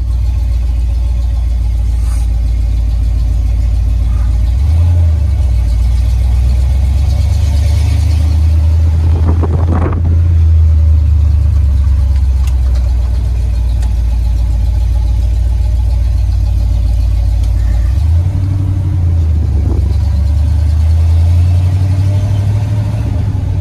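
Classic Ford truck heard from inside the cab while driving: a steady low engine and exhaust drone with road noise. The drone's pitch shifts about five seconds in and again about eighteen seconds in as the truck's speed changes.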